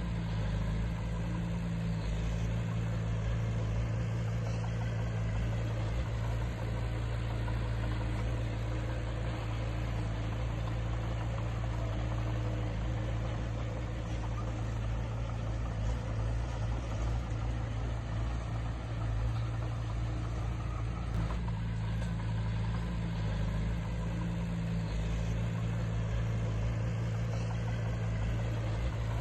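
Heavy earthmoving machine's diesel engine running steadily at a low, even drone.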